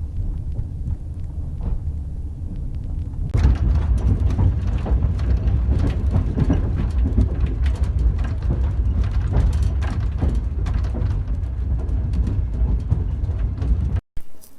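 Passenger train carriage rumbling along with its wheels clattering on the rails; it gets louder about three and a half seconds in and cuts off abruptly near the end.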